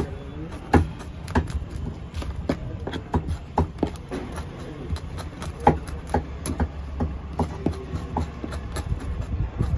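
Knife cleaning small fish on a wooden board: irregular sharp clicks and taps as the blade scrapes and knocks against the fish and the wood, over a steady low rumble.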